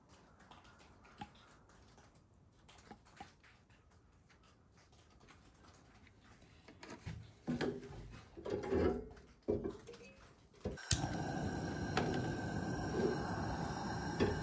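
Cooking oil pouring faintly into a cast iron skillet, then the pan knocking a few times as it is moved on the camp stove grate. About eleven seconds in there is a sharp click, and a gas camp-stove burner starts and runs with a steady hiss.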